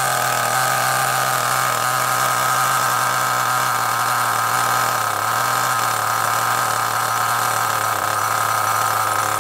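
Small two-stroke nitro glow engine of an HPI Firestorm RC car idling steadily while still cold, its tickover screw just turned down from a setting that was too high.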